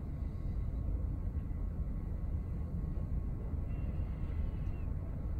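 Room tone without speech: a steady low rumble.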